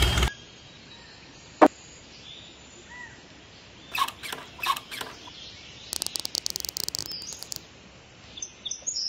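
Handling noise of small miniature hand-pump model pieces: one sharp click, then a few light taps and a quick run of ticking as the parts are fitted together. A faint bird chirp about three seconds in.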